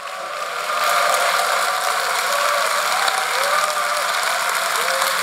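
Large hall audience applauding, the clapping swelling over the first second and then holding steady.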